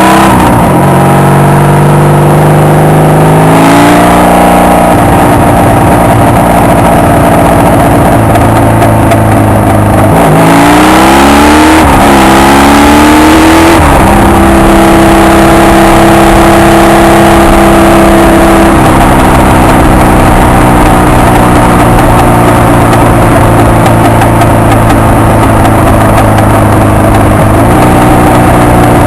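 Honda VF750 V4 motorcycle engine under way. It changes gear about half a second in, then runs steadily. About ten seconds in it revs up through two gears, with a shift near twelve seconds, and then holds a steady cruise.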